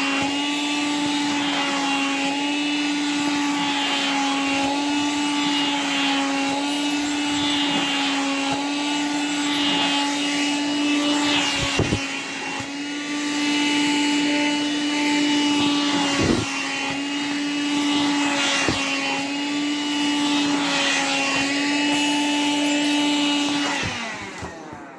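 Vacuum cleaner running steadily while sucking at clothing, its tone dipping briefly a few times as the fabric is pulled against the nozzle. Near the end the motor winds down in pitch and level as it is switched off.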